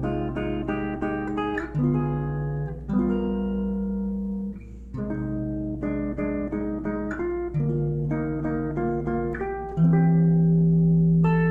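Solo guitar playing the instrumental opening of a song: picked notes and chords over held bass notes, easing off briefly about four and a half seconds in, with a louder held chord near the end.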